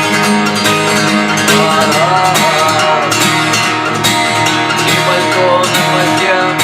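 Acoustic guitar strummed in a steady, fast gallop rhythm: a repeating down, up, down stroke pattern.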